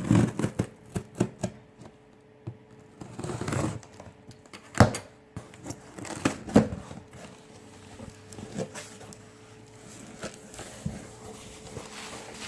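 A shipping package being opened and unpacked by hand: irregular clicks, taps and crinkling of packaging and bubble wrap, with a short rustle about three and a half seconds in.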